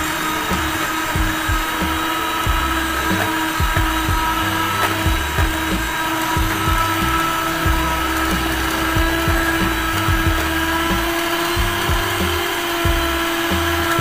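Electric hand mixer running at a steady speed, a steady motor whine, its beaters beating cake batter in a stainless steel pot with irregular low knocks.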